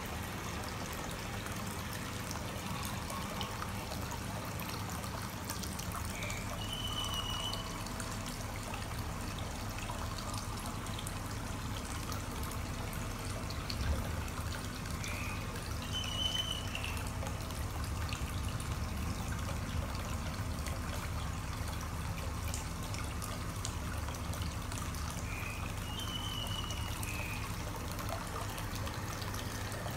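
Water trickling steadily into a goldfish pond, with a steady low hum underneath. A short high-pitched call sounds three times, about ten seconds apart.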